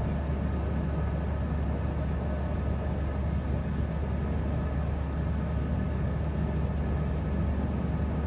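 Beechcraft King Air's twin Pratt & Whitney PT6A turboprop engines and propellers heard from inside the cabin while taxiing: a steady low drone with a faint steady whine above it.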